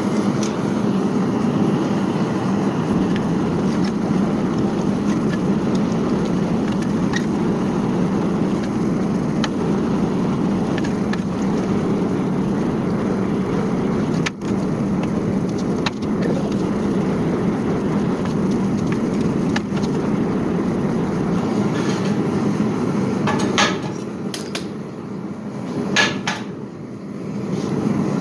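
Gas forge burner running with a steady rushing noise while a hardened steel die heats in it for tempering. Near the end the noise drops away, with a few sharp clicks.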